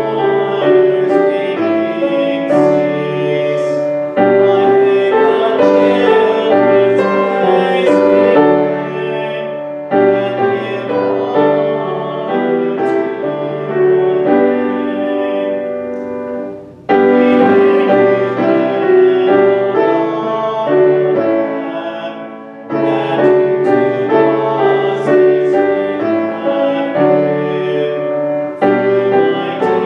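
A hymn sung with piano accompaniment, line by line, with short breaks between the phrases.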